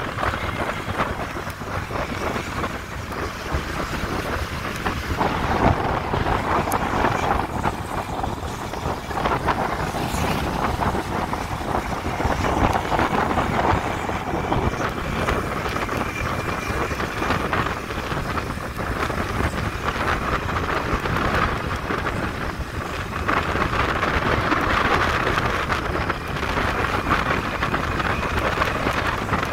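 Steady wind rush on the microphone mixed with engine and tyre noise from riding a vehicle along a paved road, with a faint steady whine underneath.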